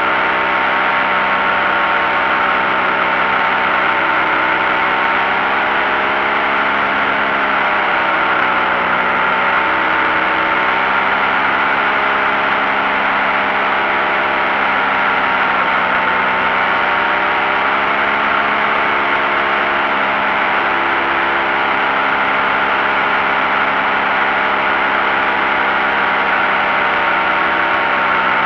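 Paramotor engine and propeller running steadily in flight, a constant drone that dips slightly in pitch twice.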